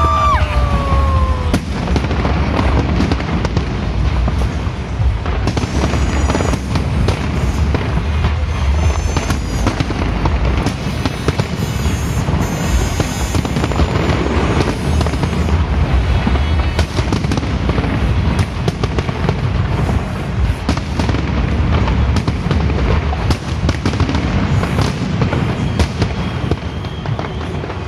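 Fireworks display going off: a dense, unbroken run of booming bursts and crackling, with music playing underneath.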